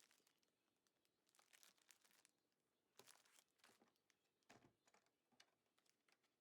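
Faint crinkling and rustling of plastic bags being handled, in several short bursts.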